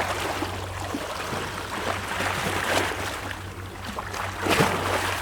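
Waves washing and splashing against rocks, with water sloshing and small splashes and a bigger splash about four and a half seconds in. A faint steady low hum runs underneath.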